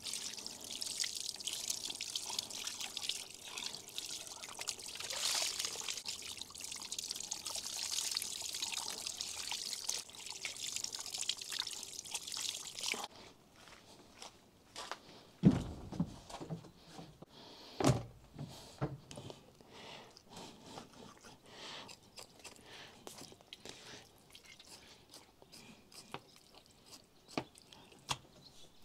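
A stream of running water pouring and splashing over raw meat as it is rinsed by hand. The water cuts off suddenly about halfway through, and is followed by two heavy thumps and a few light knocks.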